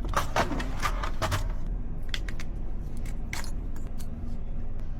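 Metal keys and locksmith tools jangling and clicking, a quick run of sharp clicks in the first second and a half and a few more later, over a steady low rumble.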